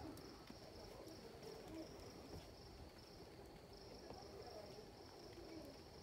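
Faint night insects trilling in one steady, high-pitched band that breaks off briefly now and then.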